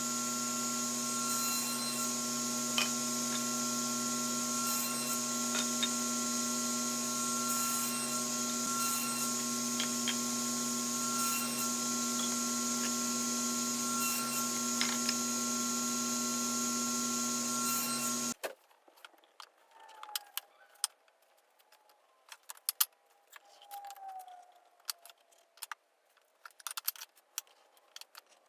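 An electric shop machine's motor runs steadily, with a constant hum and whine, and stops abruptly about 18 seconds in. After that there are scattered light clicks and knocks.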